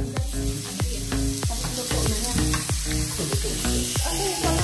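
Slices of raw meat sizzling steadily on a hot, oiled Korean barbecue grill pan, with music playing in the background.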